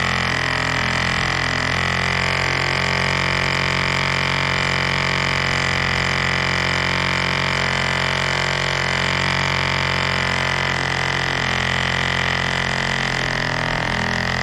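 1947 Drone 4.85 cc diesel model airplane engine running steadily while spinning a 14 x 6 propeller, holding one constant pitch with no change in speed.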